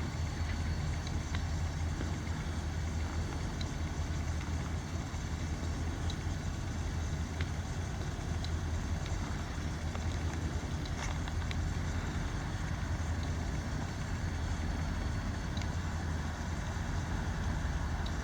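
Diesel-electric freight locomotives running with a steady low rumble.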